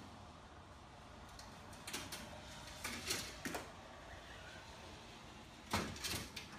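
A cat's claws catching and scraping on a window screen as it climbs, in a few short scratchy rattles about two, three and six seconds in, over a faint steady hum.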